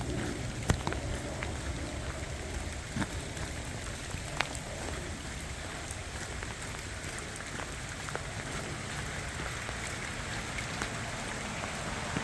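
Steady rain falling, with a few scattered sharp drops standing out from the patter.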